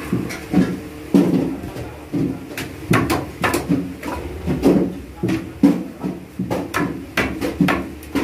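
Fish cut into steaks on a boti, a curved blade fixed upright, giving irregular chopping knocks as it cuts through flesh and bone, with pieces clattering into a metal bowl.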